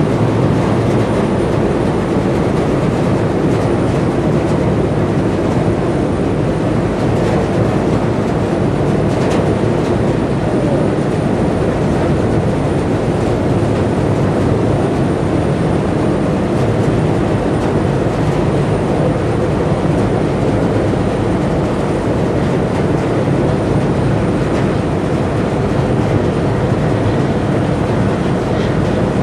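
Boat diesel engines running steadily under way, a continuous low rumble mixed with the rush of water.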